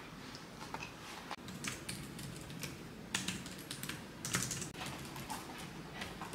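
Irregular light clicks and taps, a few to several a second, with no steady rhythm.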